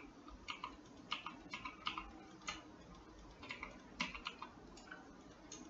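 Faint computer keyboard and mouse clicks, about a dozen short clicks at irregular spacing.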